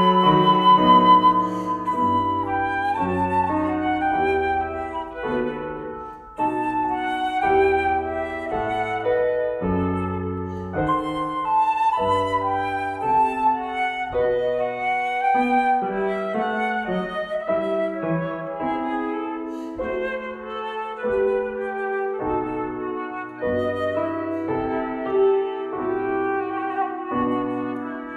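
Concert flute playing a melody, with a keyboard accompaniment sounding lower notes underneath.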